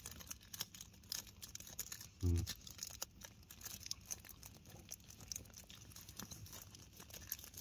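A person chewing a drink-softened Kit Kat close to the microphone: many small wet crackles and clicks, with a short hummed 'mm' about two seconds in.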